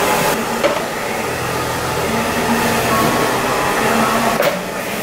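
Steady whir and airflow hiss of a small electric motor or blower, with a faint click about half a second in and another near the end.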